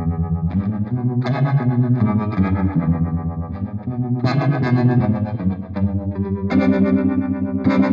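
Electric guitar playing rhythm chords through a Strymon Flint V2 tremolo and reverb pedal, on a plate reverb setting. The volume pulses quickly, several times a second, and a new chord is struck every second or two.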